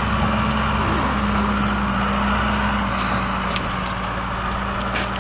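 Backhoe's diesel engine running steadily, a continuous low drone with a steady hum.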